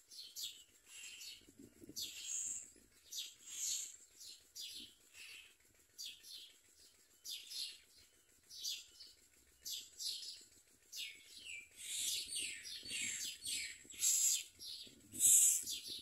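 Common myna nestlings begging for food: a run of short, high calls, a few a second, growing louder in the last few seconds as the parent feeds them at the nest.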